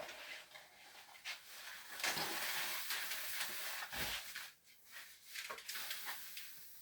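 Packaging rustling and scraping as a bass guitar is pulled out of its box, with a few light knocks, the clearest about two seconds and four seconds in.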